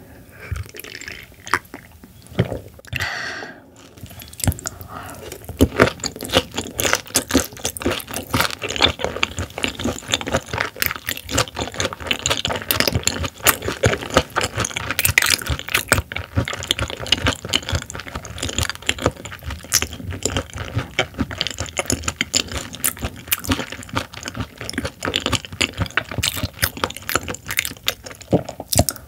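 Close-miked chewing of raw silver pomfret (butterfish) sashimi: a dense, continuous run of wet clicking and crackling mouth sounds.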